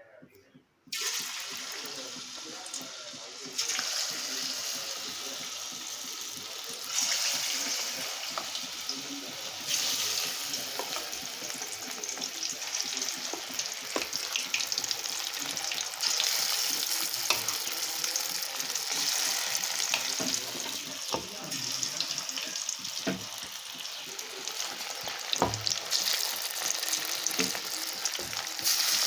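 Marinated chicken 65 deep-frying in hot oil: a dense, steady sizzle that starts about a second in and grows louder in steps, with scattered light clicks.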